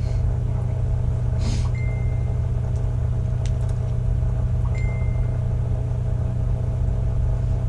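Steady low hum with no speech. A faint click comes a little past three seconds in, and two brief high squeaky tones come about two and five seconds in.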